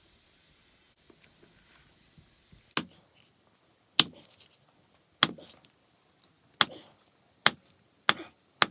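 Knife chopping on a cutting board: seven sharp, separate strokes starting about three seconds in, roughly one a second and coming closer together near the end. A faint steady hiss stops just as the chopping begins.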